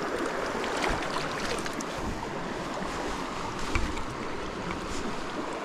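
Small mountain creek rushing steadily, with a few faint ticks over the flow.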